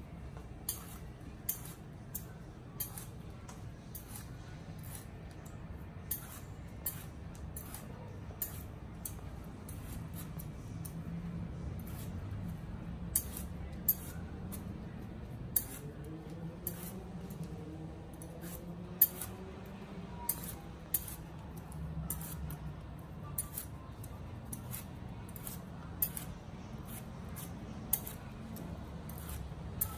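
A metal peeler shaving the thick skin off a santol fruit: short, crisp cutting strokes at roughly one a second, some sharper than others, over a low steady hum.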